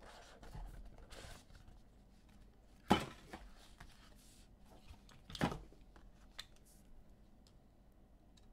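Trading cards and their packaging being handled, with faint rustling and two sharp knocks, the first about three seconds in and the second about two and a half seconds later.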